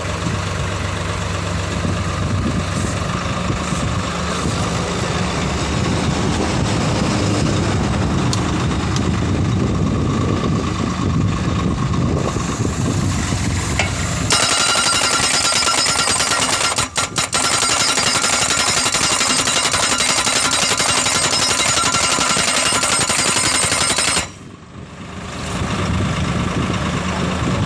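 Tractor-mounted crash-barrier post driver rapidly hammering a steel guardrail post into the ground over its running engine. About halfway the sound turns thinner and hissier, dips briefly shortly before the end, then the low pounding returns.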